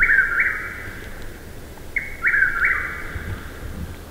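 A bird singing a short phrase of three quick notes, repeated about every two seconds.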